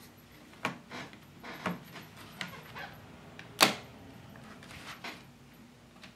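An Asus laptop's battery pack is being fitted back into its bay, with a string of light plastic clicks and knocks. One sharp click about three and a half seconds in is the loudest, as the battery snaps into place.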